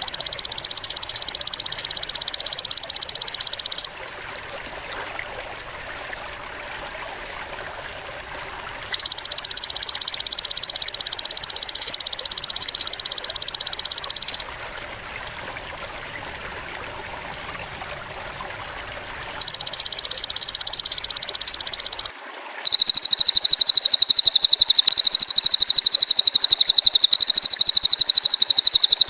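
Golden grasshopper (belalang emas) stridulating in long, rapid, high-pitched buzzing bursts of several seconds, three times with pauses between them. Then a cililin bird's thin, high, wavering trill starts about two-thirds of the way in and continues.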